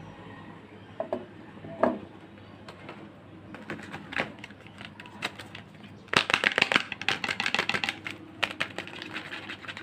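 Soap packaging being opened by hand: scattered taps and clicks, then about six seconds in a dense burst of rapid crinkling and crackling lasting around two seconds.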